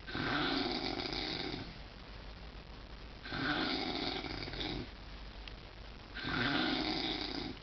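Loud snoring: three long, rasping snores about three seconds apart, with quieter breathing between them.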